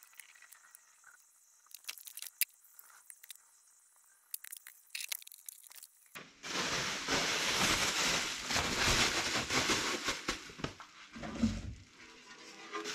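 Light scrapes and clicks of a hand scraper cleaning old sealant off an engine block's sump flange. About six seconds in, a loud, steady crinkling of plastic bubble wrap being handled and draped over the engine takes over.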